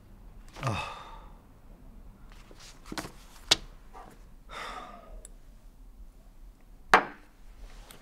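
A man sighing heavily twice, once about half a second in and again about halfway through. Three sharp knocks fall between and after the sighs, the loudest near the end.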